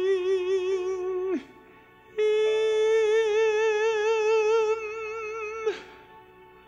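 Instrumental music: two long held notes with vibrato, the second higher than the first, with a short pause between them.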